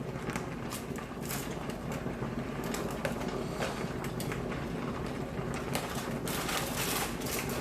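Handling noise at a cooking pot: rustling and light clicks and knocks over a steady low hum, busiest near the end.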